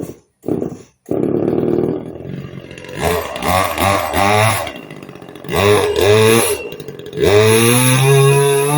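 Chainsaw engine that sputters briefly twice, then catches and runs. It is revved three times, its pitch climbing with each rev and then dropping back.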